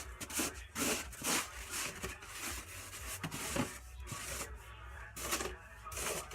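Snow crunching and scraping in short, irregular strokes, about two a second.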